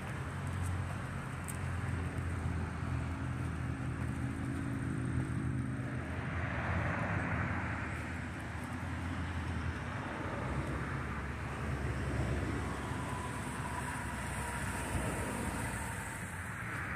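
Low, steady engine rumble from a line of sports cars, Corvettes among them, idling and creeping forward at walking pace.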